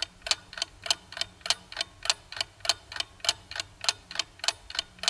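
Clock-ticking sound effect, even ticks about three a second, counting down the time to answer a quiz question.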